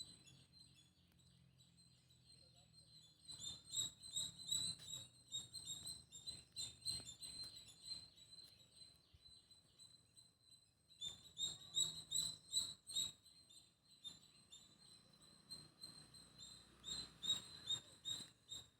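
Small birds chirping faintly in quick, repeated chirps, coming in three spells: from about three seconds in, around eleven seconds, and near the end.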